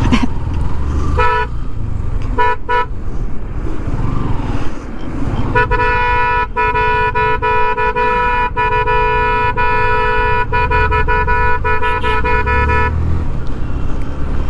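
Vehicle horn sounding a few short toots, then one long steady blast of about seven seconds, over the low rumble of engines and road noise in heavy traffic.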